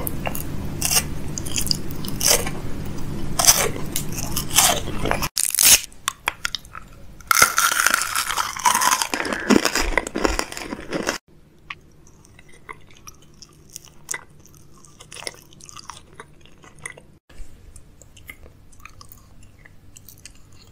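Crunching, biting and chewing of food, close to the microphone. It is loud and dense for about the first eleven seconds, with a short break about five seconds in, then drops to faint, scattered mouth clicks and soft chewing.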